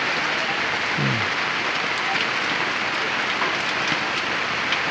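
Steady rain falling, a constant hiss with a few faint ticks. A short voice sound comes about a second in.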